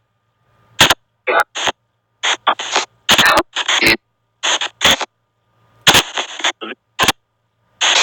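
SP White Noise spirit box app playing through a phone speaker: a rapid string of chopped bursts of white noise and clipped voice-like fragments, each a fraction of a second long, cut off sharply into silence between them.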